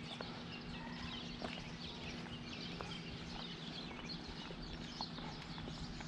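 Outdoor ambience of birds chirping over a steady low hum, with a few faint footsteps on asphalt.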